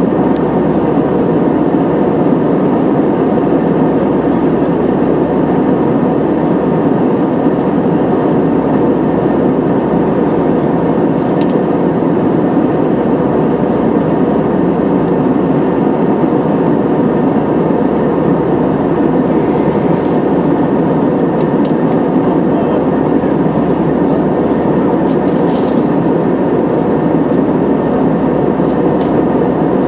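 Steady cabin noise of an Airbus A320-214 in cruise: the jet engines and rushing airflow, heard from inside the cabin at a window seat.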